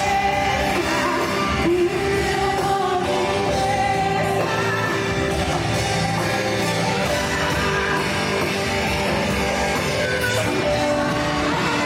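Contemporary gospel worship song with a full rock band, electric guitar among it, and singing, played continuously and loudly, heard with the reverberation of a large hall.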